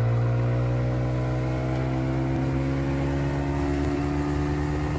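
A 40 hp outboard motor running at speed on a planing boat, its pitch steady and slowly creeping higher, over the rush of wind and water.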